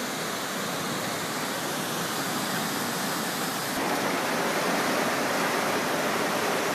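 Fast-flowing floodwater of a creek in flash flood, a steady rushing noise that gets a little louder about four seconds in.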